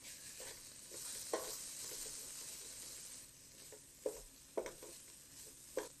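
Chopped vegetables and garlic sizzling in a stainless steel pan as they are stirred with a wooden spoon; the sizzle fades after about three seconds. The spoon knocks sharply against the pan four times.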